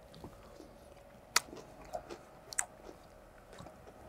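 Quiet chewing of a mouthful of freshly made coleslaw of raw shredded cabbage, with two short sharp clicks, one about a second and a half in and another about a second later.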